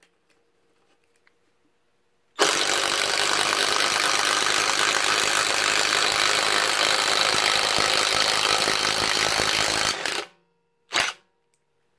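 Bauer 20V cordless compact impact driver hammering a deck screw into wood without a pilot hole. It runs steadily for about seven and a half seconds, stops abruptly, then gives one short burst as the screw is seated.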